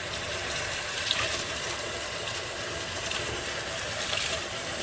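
Kitchen tap running steadily into a stainless steel sink, the stream splashing over hands that hold a handful of breadcrumbs to soak them.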